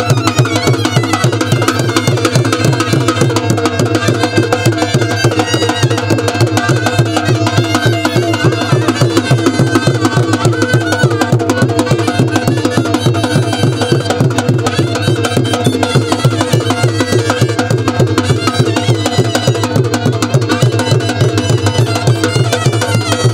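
Gujarati wedding folk music: a fast, steady drum beat under a pitched melody line, playing without a break.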